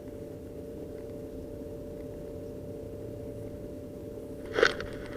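Faint steady hum with a few fixed pitches, with one brief sharp click or knock near the end.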